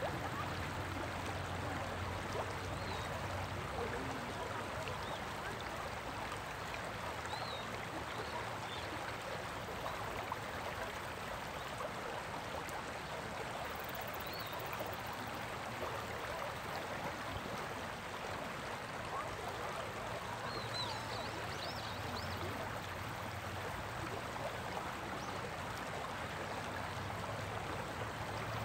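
Shallow river riffle running over rocks: a steady, even rush and babble of flowing water, with a few faint high chirps.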